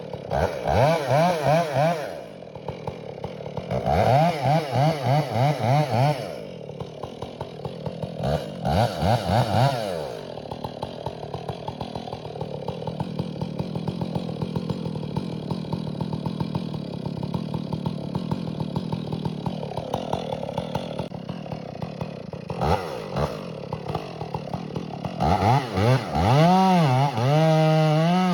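Two-stroke chainsaw revved hard in short, wavering bursts with the throttle pumped, settling to a lower steady run for a long stretch in the middle, then revving up again and holding high near the end.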